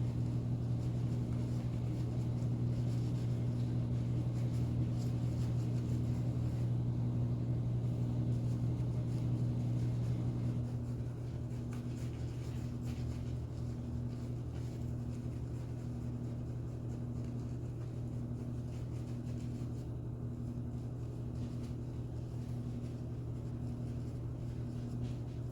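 Household laundry machine running: a steady low hum with a tone that pulses about once a second. About ten seconds in, part of the hum drops out and it gets slightly quieter.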